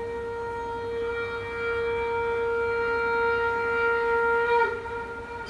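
A wind instrument holds one long steady note in recorded dance music. The note wavers briefly and falls away about four and a half seconds in.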